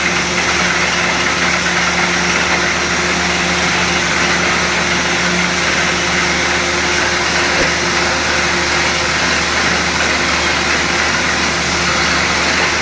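Borewell drilling rig and its air compressor running at a steady, unchanging load: a constant engine drone under a dense, rushing noise.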